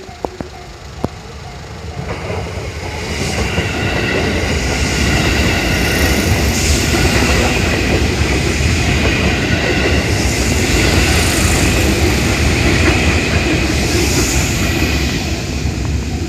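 JR 221 series electric train passing close by at a level crossing, its running noise building about two seconds in and fading near the end, with wheels clacking over the rail joints.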